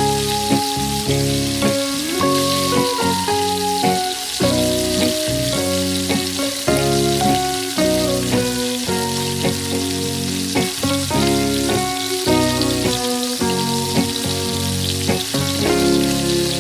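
Chicken fillets deep-frying in hot oil, a steady sizzle throughout. Instrumental background music with a quick run of changing notes plays over it.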